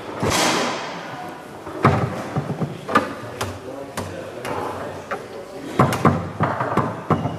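Leonhart foosball table in play: irregular sharp knocks and clacks as the plastic men strike the ball and the ball and rods hit the table.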